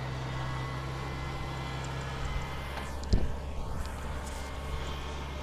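Kubota combine harvester's diesel engine running steadily as the tracked machine crawls down a ditch bank. About three seconds in comes a sharp thump, the loudest sound here, followed by a few smaller knocks as the machine drops into the ditch.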